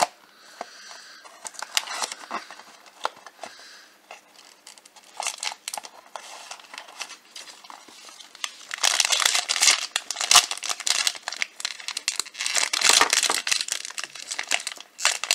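Cardboard blind box being opened and pulled apart, then its sealed plastic bag crinkling and being torn open. The crinkling is loudest and densest in the second half.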